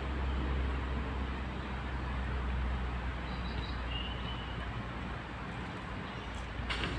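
Steady outdoor background rumble beside a railway line, with no train passing. Two brief high chirps come around the middle, and a short knock comes near the end.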